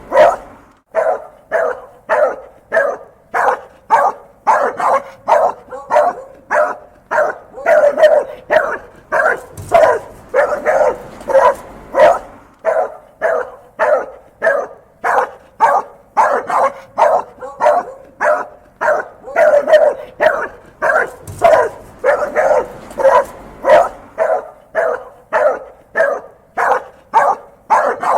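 An angry dog barking over and over, about two sharp barks a second without a break.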